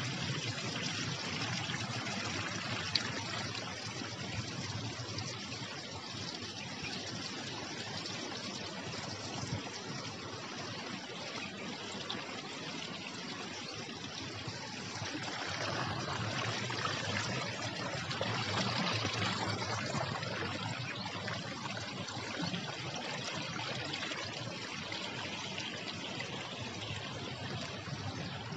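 Water trickling and running steadily, swelling louder for a few seconds about halfway through.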